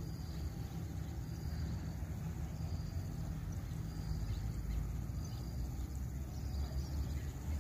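Outdoor ambience: a steady low rumble with faint, short high chirps repeating about every second and a half.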